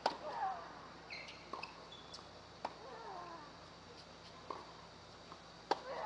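Tennis rally on an outdoor hard court: sharp racket-on-ball hits at the start, about two and a half seconds in from the far end, and near the end, with ball bounces between them. Short falling vocal grunts from the players follow the hits.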